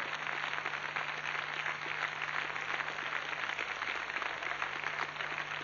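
Studio audience applauding: a dense, steady patter of many hands clapping, with a faint low hum beneath.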